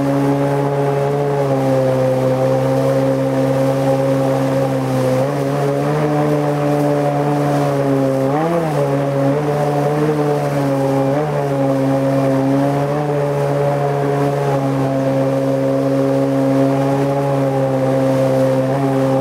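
Tohatsu M50D2S two-stroke outboard with a water-jet drive, running at steady high revs under load as it pushes the inflatable boat upstream against the current. Its pitch wavers briefly three times.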